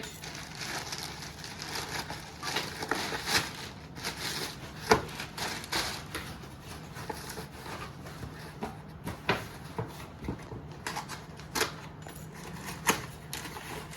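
Packaging being handled and opened: rustling and crinkling with many scattered clicks and knocks, the sharpest about five seconds in and again near the end.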